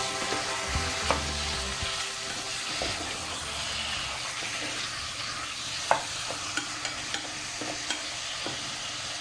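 Food sizzling in a hot pan while a utensil stirs it, with scattered clicks and scrapes of the utensil against the pan; the sharpest click comes about six seconds in.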